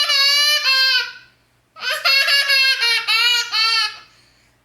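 A baby laughing in two bouts of high, pulsing laughter, the second starting about two seconds in and trailing off near the end.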